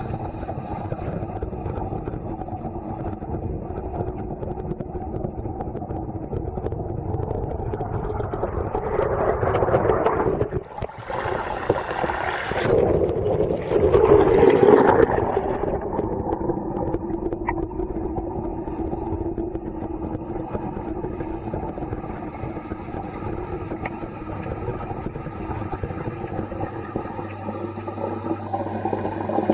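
Pond pump running with a steady hum, heard through the water by a submerged camera. About halfway through, loud sloshing and splashing for a few seconds as the camera comes up to the surface, then the steady underwater hum again.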